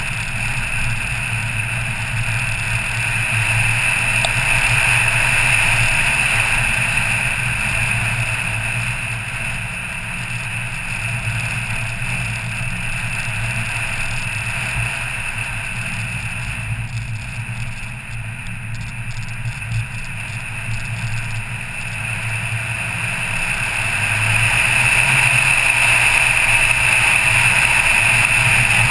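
A car driving along at road speed, its engine running steadily under a constant hiss of tyre and wind noise heard on board, growing somewhat louder near the end.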